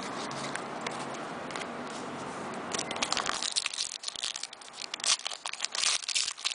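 Foil trading-card pack wrapper crinkling and tearing as it is handled and ripped open, a dense run of crackles that starts about three seconds in, after steady low background noise.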